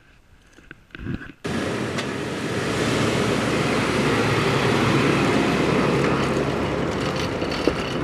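A motorboat under way at speed: a steady engine hum under a loud rush of wind and water. It cuts in suddenly about a second and a half in and stops just before the end.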